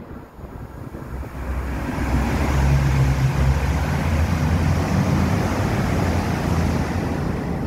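A motor vehicle's engine and road noise swelling over the first two seconds and then staying loud, with a low engine hum.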